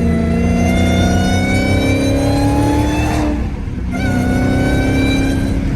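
Supercharged 6.2-litre Hemi V8 of a Dodge Hellcat accelerating hard, its pitch rising steadily, dropping briefly at a gear shift about three seconds in, then rising again. The supercharger whistle is weaker than usual, which the owner puts down to a wet air filter.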